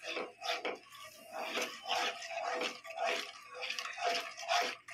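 Wooden spatula stirring a runny semolina, mawa, sugar and milk mixture in a non-stick kadhai, in quick repeated wet strokes, a few a second. It is stirred fast so that no lumps form as the mixture thickens.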